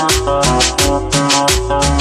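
Dance music from a sonidero DJ set: a fast, steady percussion beat over a bass line and held keyboard chords.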